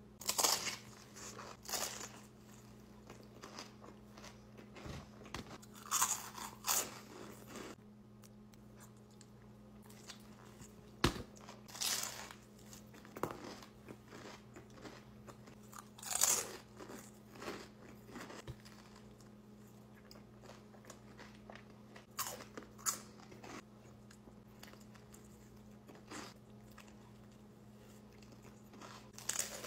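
Close-miked bites and chewing of a tuna sub sandwich topped with red crunchy chips: loud crunches every few seconds between quieter chewing, over a faint steady hum.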